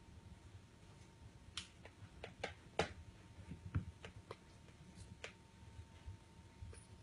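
Scattered light clicks and taps, bunched in the middle few seconds, as kittens paw at small toys close by.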